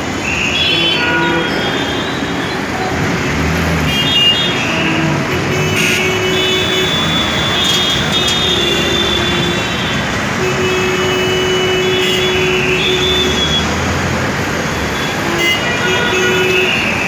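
Busy street traffic with many vehicle horns honking over and over, overlapping short toots and longer blasts in different pitches, one held for a couple of seconds past the middle, over a steady rumble of engines and road noise.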